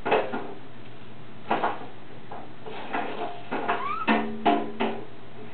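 A baby sounding notes on a musical instrument, one at a time in an uneven rhythm: about a dozen notes, each starting sharply and ringing briefly. A short rising squeak comes about four seconds in.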